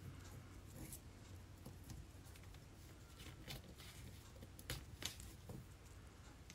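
Faint rustling of a paper pattern piece and fabric being handled as dressmaker's pins are pushed through them, with a few small clicks in the second half, over quiet room tone.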